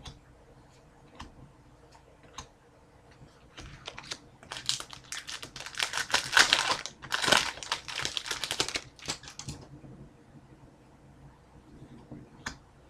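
Upper Deck hockey card packs and cards being handled: a few scattered light clicks, then about five seconds of dense crinkling and rapid clicking starting about four and a half seconds in.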